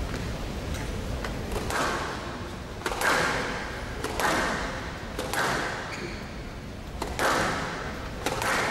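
Squash rally: the ball smacked by rackets and striking the court walls, sharp smacks about once a second, each echoing in the hall.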